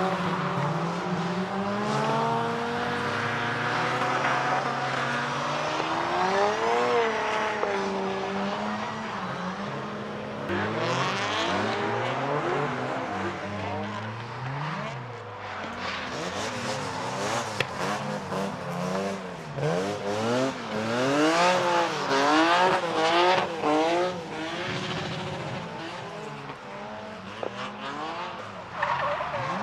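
Retro cars on track with engines revving up and down repeatedly in quick throttle blips, most rapidly near the end, over tyre squeal and skidding, typical of cars drifting past.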